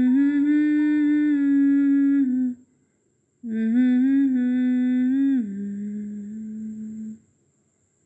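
A voice humming a slow melody in two long held phrases with a short break between them; the second phrase steps down to a lower note partway through and is held.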